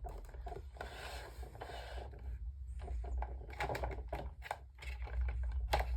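Handling noises from a desk fan being taken apart: a scraping rustle about a second in, then scattered clicks and knocks as the grill is worked loose.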